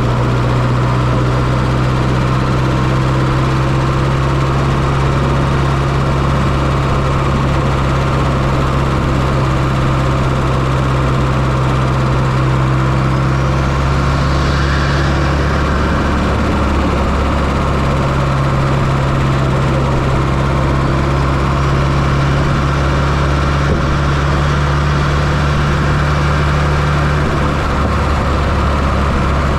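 1995 Fiat Coupe 2.0 16V turbo four-cylinder engine running steadily at idle, heard from inside the engine bay; about halfway through its note wavers briefly before settling back.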